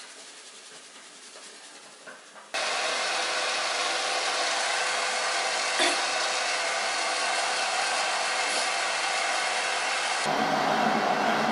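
Soft towel rustling on a wet kitten. About two and a half seconds in, a hair dryer switches on suddenly and blows loud and steady, its sound growing slightly fuller near the end.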